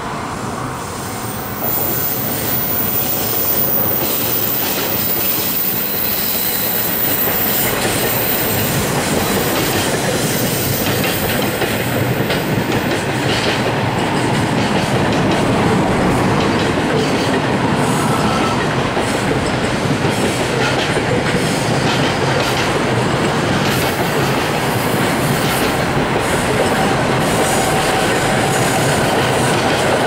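JR Kansai Main Line freight train of container wagons rolling past, its noise stepping up about two seconds in and then holding steady as the wagons go by.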